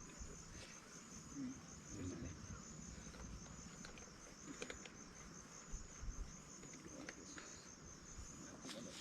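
Insects, crickets or the like, trilling steadily in a fast-pulsing high note, with a few faint clicks and knocks in between.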